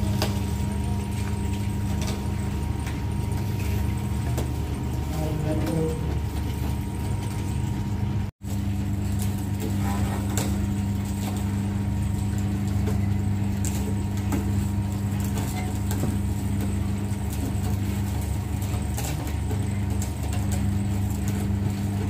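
Electric sugarcane juicer running with a steady motor hum as cane stalks are fed through its rollers and crushed.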